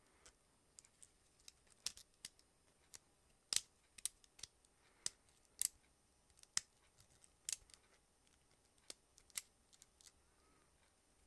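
Faint, sharp metallic clicks at irregular intervals as the coiled wrap spring of an alternator decoupler (overrunning) pulley is worked off its hub by hand, the spring's coils ticking against the pulley's metal.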